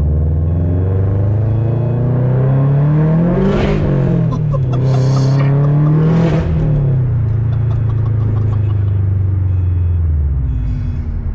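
Turbocharged EJ25 flat-four of a 500 hp Subaru WRX, heard from inside the cabin, pulling hard through the gears. The engine pitch climbs, drops at a shift about four seconds in, climbs again and drops at a second shift around six seconds, then holds before easing off near the end. Short bursts of rushing noise come around each shift and once between them.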